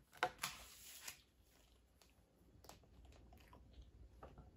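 A glass bottle of hot sauce shaken hard: a couple of sharp knocks and a short rush of noise in the first second. After that, only faint clicks as the bottle is handled.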